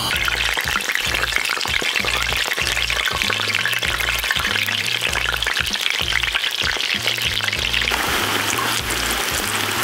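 Aubergine slices deep-frying in oil at about 160 °C, a dense crackling sizzle that becomes smoother about eight seconds in. Background music with a steady bass beat underneath.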